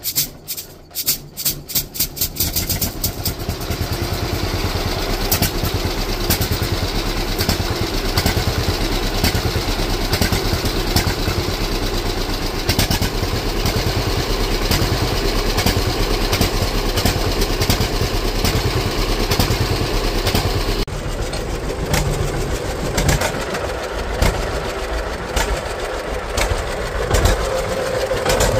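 1940 John Deere B's two-cylinder engine, started by spinning its flywheel by hand: a few separate, spaced firing strokes as it catches, then it runs steadily with an even, pulsing beat.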